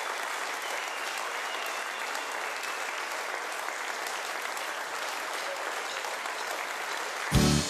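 Theatre audience applauding steadily. Near the end a sudden loud low beat breaks in, the first beat of music starting up.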